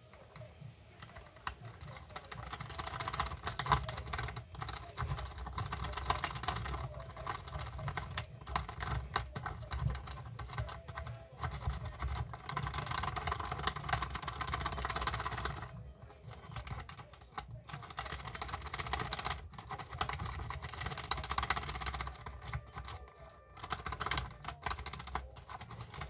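A jiggler key being raked in and out of a Lowe & Fletcher 36 series cam lock under light tension, giving a fast, uneven metallic clicking and rattling, with short pauses about two thirds of the way in and again near the end.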